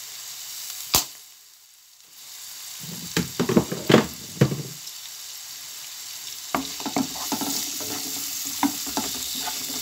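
Chicken, carrots and onion sizzling in a frying pan with a steady hiss. A sharp click comes about a second in, then a cluster of knocks, and in the second half the pan is stirred, with a utensil scraping and clinking against it.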